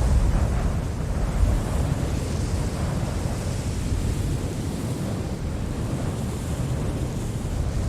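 Storm wind blowing in medium gusts: a steady rushing noise, heaviest in the low end, with a gust easing off about a second in.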